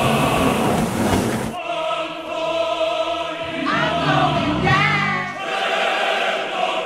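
Background choir music, voices holding sustained chords, with a brief rush of noise in the first second and a half and a singing voice gliding over the chords about four to five seconds in.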